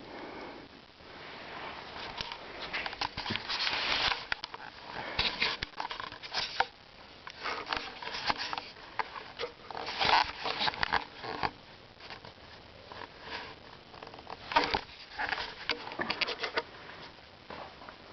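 A pet cat moving about close by: irregular rustling and scratching noises in short bursts, with a few sharper scrapes.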